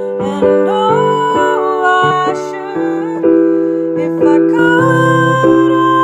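A woman singing held, gliding notes while accompanying herself with piano chords.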